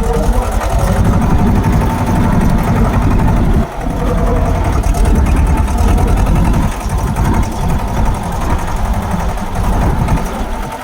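Tractor engine running steadily with a heavy low rumble, heard from the driver's seat, with a brief dip in level a little under four seconds in.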